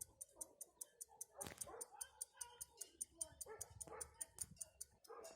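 Faint, even ticking of a Favre-Brandt pocket watch's movement, about five ticks a second, with a single knock about a second and a half in and faint scattered background sounds.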